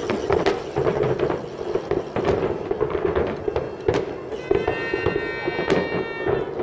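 Fireworks display: aerial shells bursting in a quick, irregular string of sharp bangs and crackles.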